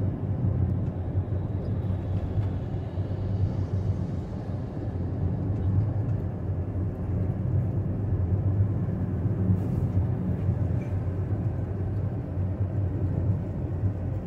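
Steady low road rumble of a car driving at speed, tyre and engine noise heard from inside the cabin.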